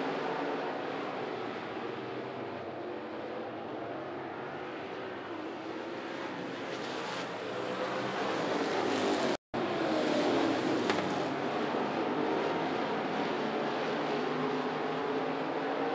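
A pack of dirt-track race cars running hard around the oval, their engines blending into one continuous noise that swells as the cars come past. The sound cuts out completely for a split second about nine and a half seconds in.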